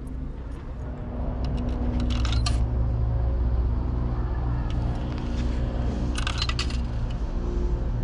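Coins jingling and clinking as they are handled, in short clusters about two seconds in and again about six seconds in, over the steady low rumble of a car.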